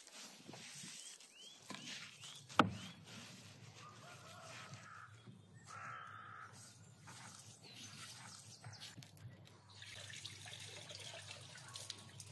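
Quiet outdoor ambience with a few short bird chirps and soft handling of a raw whole lamb carcass. A single sharp click about two and a half seconds in is the loudest sound.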